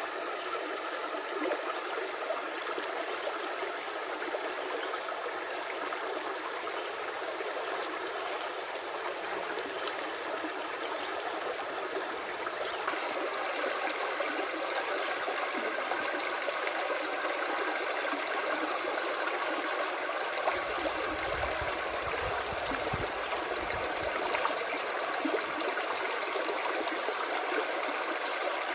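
Creek water flowing steadily, a continuous even rush.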